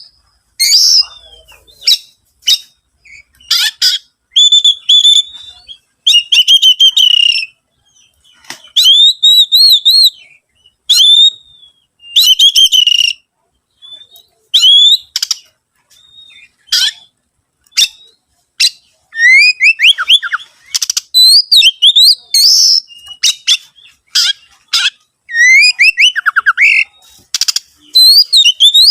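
Oriental magpie-robin (kacer) in full song: a long run of varied, loud whistled phrases with rising and falling slurs and quick trills, broken by sharp clicks and short pauses.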